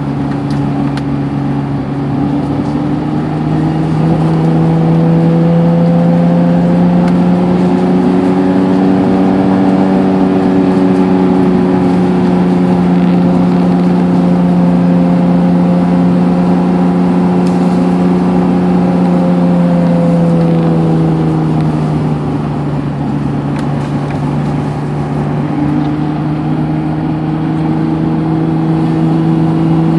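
Turbocharged Acura NSX's mid-mounted V6 engine running steadily at low speed, heard from inside the cabin. Its note rises a little about four seconds in and drops back around twenty seconds in.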